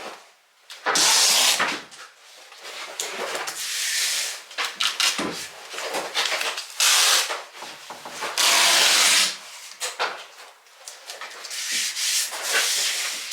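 Cardboard being torn up by hand: a series of long ripping and scraping strokes, each about a second or less, with short pauses between.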